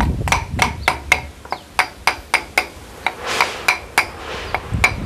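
Long wooden pestle pounding in a wooden block mortar, crushing rujak ingredients: a steady series of sharp wooden knocks, about three a second.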